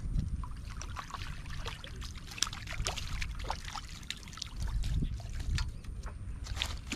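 A hooked fish splashing at the water surface as it is played on a long fishing pole: irregular short splashes and slaps, over a low rumble that swells about two-thirds of the way through.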